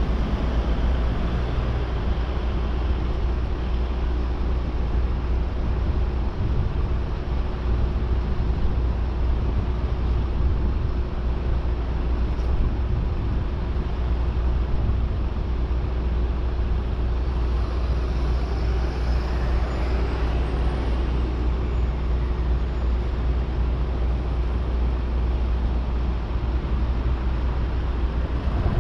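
Steady road-traffic and engine noise with a heavy, deep rumble. In the second half a faint siren wail rises and falls for several seconds.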